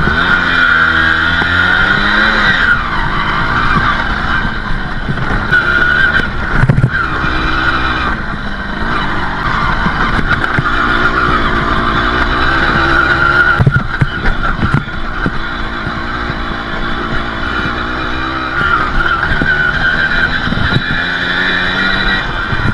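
Balkan 50 dirt bike's small two-stroke single-cylinder engine running under way, its revs rising and falling with the throttle, with a few sharp knocks as the bike bumps over rough ground.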